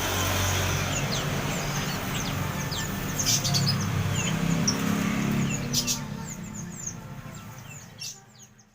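Many small birds chirping over one another in short, quick calls, with a low hum underneath; the sound fades out near the end.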